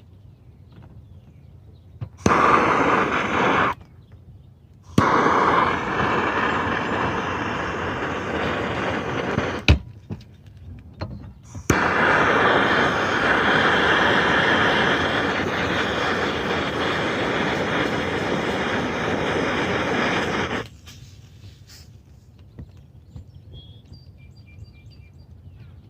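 Propane roofing torch blasting in three long bursts, the last about nine seconds long, as it heats roofing material. A sharp click sounds between the second and third bursts.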